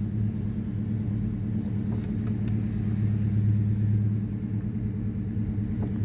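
Ford Mustang's 4.6 V8 engine running steadily with a low rumble, the car just set off on a hastily repaired rear differential.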